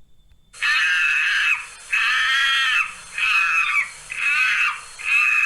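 Recorded monkey calls: a run of loud, high-pitched whooping calls, each about a second long with a short gap between, about five in all, starting about half a second in.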